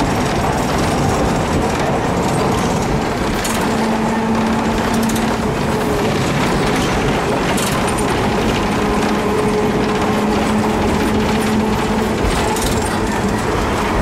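Hiroden type 100 tram car no. 101 running along street track, heard from inside its wooden cab: a steady running rumble of wheels and car body, with a low steady hum coming in briefly about four seconds in and again from about eight and a half to twelve seconds.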